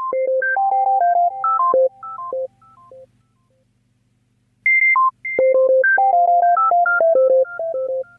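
A simple electronic melody of pure, beep-like notes, in the manner of a phone ringtone. It plays in two phrases separated by a pause of about a second and a half, with a faint low buzz beneath.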